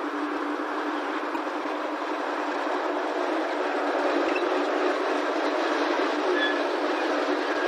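Small narrow-gauge diesel locomotive hauling a train of loaded sugarcane wagons past at close range: a steady engine and running noise that grows louder about halfway through as it draws alongside, with a brief high squeal near the end.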